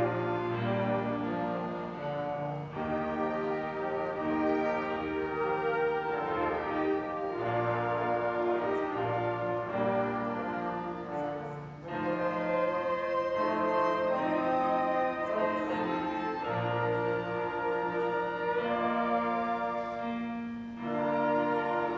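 Live instrumental music: sustained chords that change every second or two over a moving bass line, with a brass-like, orchestral sound.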